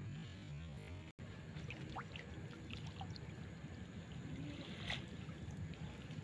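Wet nylon cast net being pulled up out of the river, water trickling and dripping from the mesh back into the river. A little background music runs until it cuts off about a second in.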